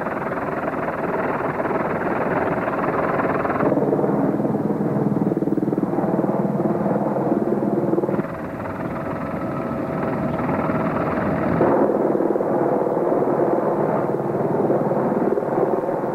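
Helicopter engine and rotor noise, a steady loud din heard from inside the cabin, changing abruptly in tone and loudness three times as the shots change.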